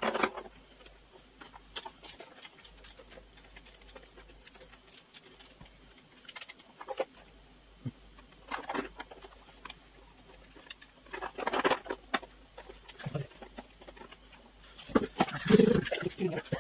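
Irregular handling sounds: scattered clicks, knocks and scrapes as a monitor stand is worked into place, with a denser cluster of knocks near the end.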